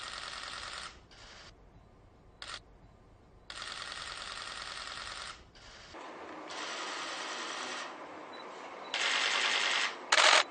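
Press photographers' cameras firing rapid bursts of shutter clicks, in runs of one to two seconds separated by short pauses. The loudest, sharpest burst comes near the end.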